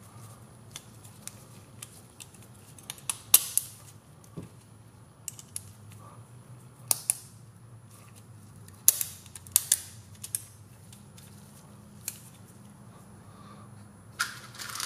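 Carbon-fibre drone frame plates and small metal screws being handled and fitted, giving light scattered clicks and taps with a handful of sharper clacks.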